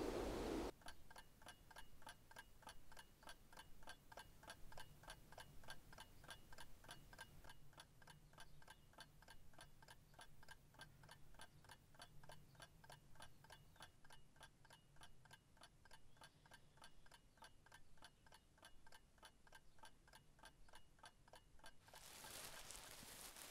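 Wall clock ticking steadily, several even ticks a second, after a short rustle of outdoor air that cuts off within the first second.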